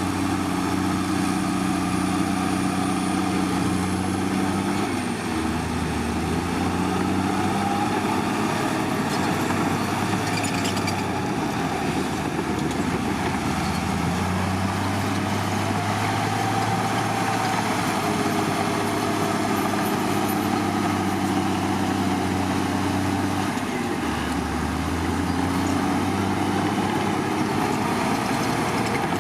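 Heavy diesel engine of earthmoving equipment running continuously. Its pitch drops and recovers twice, about five seconds in and again near 24 seconds, as the load or throttle changes.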